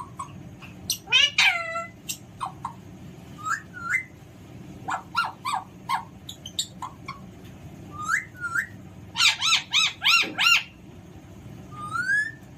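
Alexandrine parakeet whistling and calling in short notes, some rising, some falling, with a quick run of arched, repeated notes about nine seconds in.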